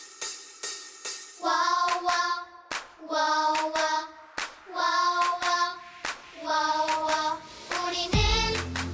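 Upbeat children's song: voices singing a melody in short phrases over music, with sharp hand claps about twice a second.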